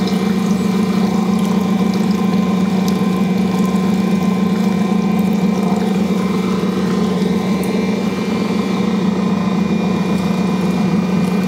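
Ankarsrum stand mixer's motor running with a steady, even hum as its bowl turns, stirring flour into the liquid at the start of mixing a bread dough.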